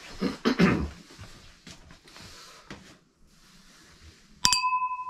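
Two stemmed glass beer glasses knocked together once near the end, a sharp clink that rings on briefly in a few clear tones.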